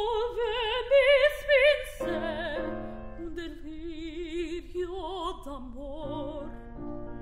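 Mezzo-soprano singing an Italian operatic recitative with a wide vibrato, accompanied by piano. The voice rises on held notes, then drops lower and falls silent about six seconds in, leaving the piano playing sustained chords.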